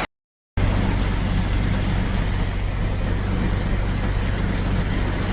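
Heavy rain falling steadily, with a steady low hum from an idling vehicle engine, after a half-second break in the sound at the start.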